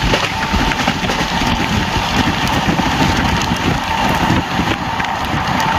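Express train running, heard from on board: a heavy steady rumble of the coach and wheels on the rails, with a thin steady whine and scattered light clicks.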